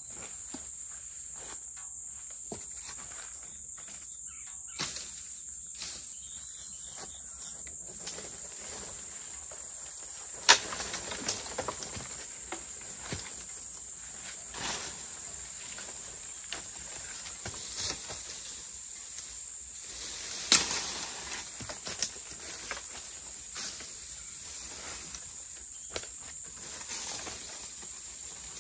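Dead branches being pulled down and snapped by hand, with scattered sharp cracks and rustling brush; the loudest cracks come about ten and twenty seconds in. A steady high-pitched insect chorus runs underneath.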